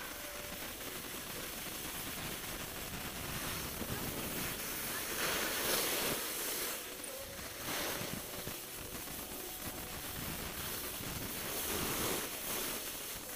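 Snow bike's skis hissing and scraping over groomed snow while riding downhill, swelling in several surges as it carves, with wind rushing over the microphone.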